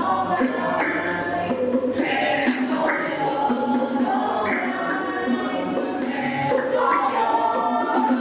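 A group of voices singing a worship song together, with sharp percussive strokes keeping the beat.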